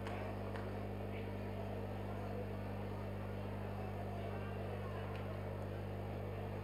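Steady low electrical mains hum, unchanging, under faint room noise.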